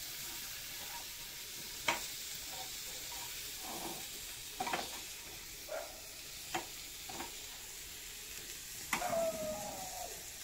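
Indian mackerel frying in a pan of oil, sizzling steadily, with a spatula scraping and clicking against the pan several times as the fried pieces are turned and lifted out.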